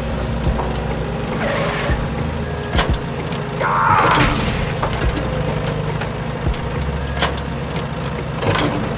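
Low, steady engine running and idling for the toy excavator, with scattered knocking clicks; a louder rasping scrape comes about four seconds in, as the bucket works against the toy train in the sand.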